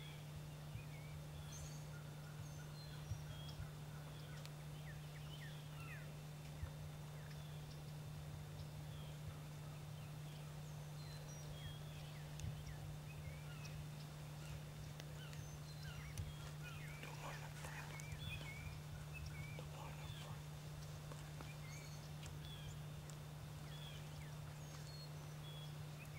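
Faint wild turkey gobbling, a rattling call about two-thirds of the way through, over small songbirds chirping and a steady low hum.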